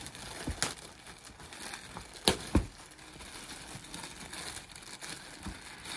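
Plastic poly-bag packaging crinkling and rustling as it is handled, with a few sharp crackles, the loudest two close together a little after two seconds in.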